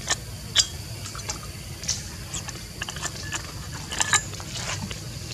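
Irregular short clicks and ticks, about one or two a second, over a steady low hum.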